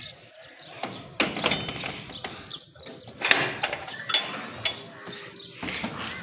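Metal grille security door and its barrel-bolt latch being handled: a few metallic clicks and knocks, the sharpest about a second in and about three seconds in, with a brief squeak near the middle.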